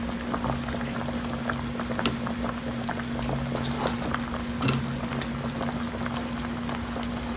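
A stockpot of beef-rib broth bubbling on the burner, an even hiss with faint crackle over a steady low hum. A few light clicks come as cabbage wedges are set on top, the loudest just under five seconds in.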